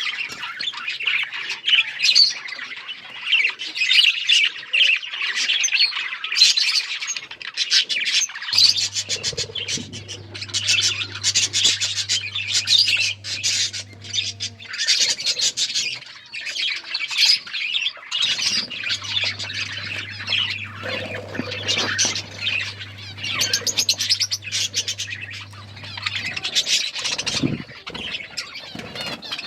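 Pet budgies (budgerigars) chattering continuously in a dense stream of short, high calls. A low steady hum comes in about a third of the way through, stops, and returns for a while later.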